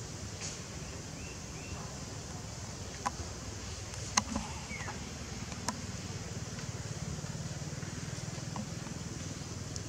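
Steady low hum of a distant engine, with a few sharp clicks, the loudest about four seconds in, and a couple of faint short high chirps.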